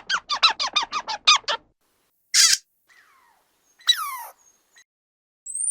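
Squirrel chattering: a rapid run of about a dozen squeaky chirps over the first second and a half, then a short hissy burst and a single squeal falling in pitch.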